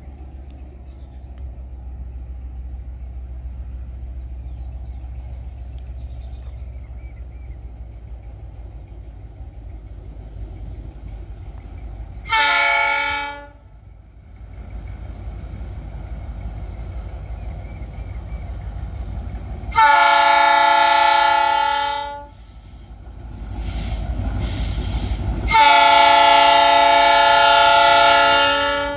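G22U diesel locomotive approaching, a low engine rumble slowly growing louder, broken by three blasts of its multi-tone air horn. The first blast, about halfway through, is short; the second and third are long, and the last runs on near the end.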